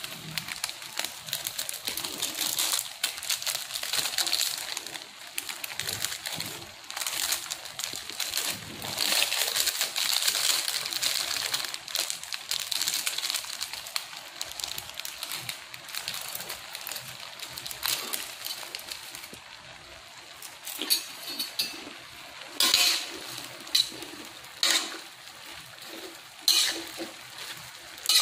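Stir-fried mung bean sprouts, tofu and pork cracklings sizzling in a hot metal wok, a steady crackling hiss. In the last third, separate sharp clinks and scrapes of stirring against the pan cut through it.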